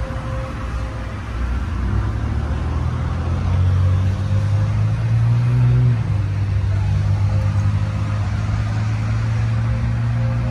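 A motor vehicle engine running with a low steady hum that rises a little in pitch and loudness over the first few seconds, then drops slightly about six seconds in and holds.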